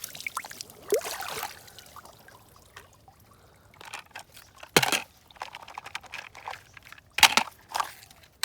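A few sharp knocks and clicks of toy vehicles being handled and set down. The loudest comes about five seconds in, with a quick cluster near the end.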